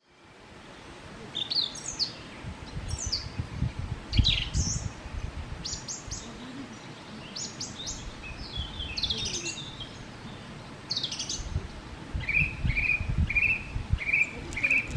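Wild birds singing and calling: quick chirps and falling whistles, then near the end one bird repeating a short note about twice a second. A low rumble comes and goes underneath, and the sound fades in at the start.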